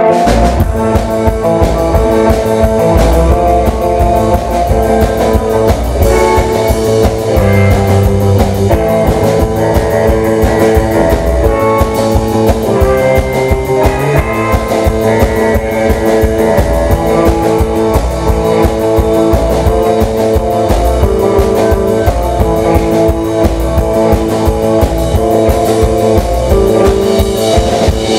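Live rock band playing: electric guitars over a drum kit, with the drums coming in at the start and keeping a fast, steady beat.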